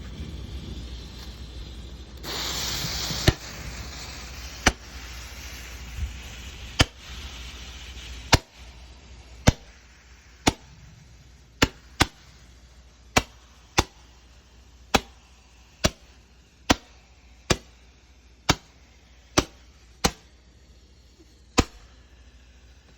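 A brief gust of rushing wind noise, then a series of nearly twenty sharp clicks at roughly one a second, unevenly spaced.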